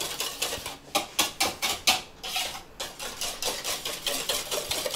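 A wire whisk beating eggs, sugar and salt in a bowl for cake batter: quick, rhythmic clicks and scrapes of the whisk against the bowl, about four or five strokes a second, with a couple of brief pauses.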